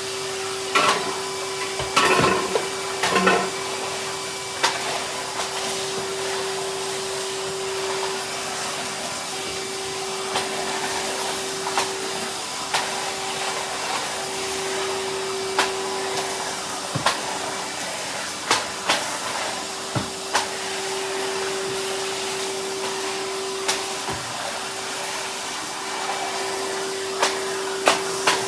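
Henry canister vacuum cleaner running steadily with a constant hum, picking up debris from the floor. Sharp clicks and knocks are scattered through, with a cluster of them in the first few seconds.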